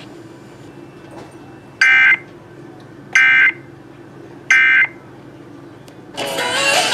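Three short bursts of Emergency Alert System SAME data tones, each about a third of a second long and roughly a second and a third apart, over a low steady hum: the end-of-message signal that closes a relayed severe thunderstorm warning. About six seconds in, the radio station's own audio cuts back in loudly.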